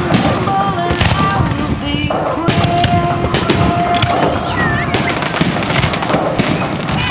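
A fireworks salute going off: a quick run of bangs and crackling bursts, with held tones sounding underneath.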